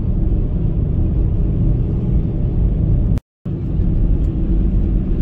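Steady low rumble of a van's engine and road noise inside the cab while driving along. The sound cuts out completely for a moment just past halfway, then carries on unchanged.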